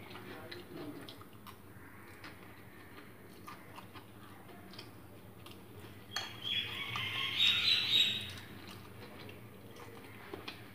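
Metal fork clicking and scraping on a plastic plate while noodles are eaten, with small mouth sounds of chewing. Past the middle comes a louder, squeaky sound lasting about two seconds.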